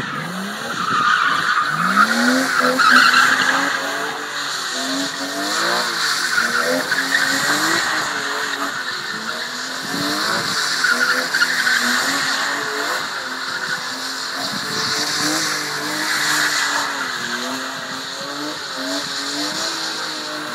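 BMW M3's straight-six engine revving hard, its pitch rising and falling every second or two, while the rear tyres squeal without a break as the car spins donuts.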